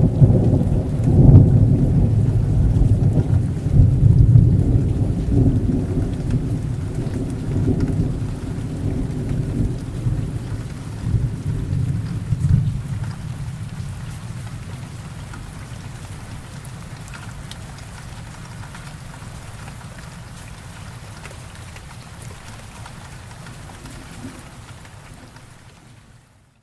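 Thunderstorm: a long, loud roll of thunder rumbling in the first few seconds and slowly dying away over about a dozen seconds, over steady rain. The sound drops away abruptly just before the end.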